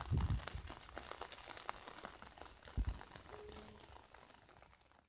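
Outdoor ambience: a faint steady hiss with light crackling, broken by low rumbling gusts of wind on the phone microphone at the start and again about three seconds in, fading toward the end.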